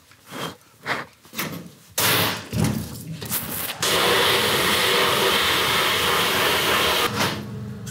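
Bead-blast cabinet in use: a few knocks as the part is handled, then about two seconds in the compressed-air blast nozzle starts with a loud, steady hiss of beads striking a small metal engine part. The hiss eases off near the end.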